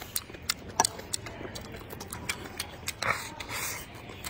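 Close-up chewing and mouth clicks from a person eating, with scattered sharp small clicks and a short audible breath about three seconds in.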